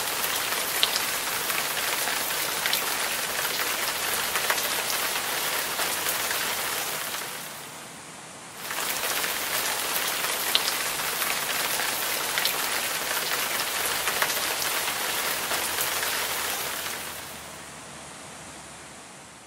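A curtain of water pouring down in many thin streams and splashing onto the ground, a dense, even rain-like hiss. It dips briefly about eight seconds in, resumes, and fades away near the end.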